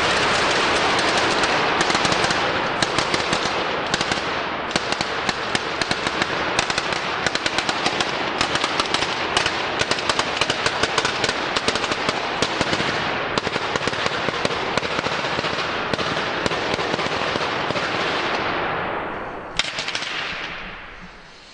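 Fireworks on the Scoppio del Carro cart going off: a dense rush at first, then strings of firecrackers bursting in rapid crackling volleys of bangs, several a second. Near the end they thin out and fade, with one last bang.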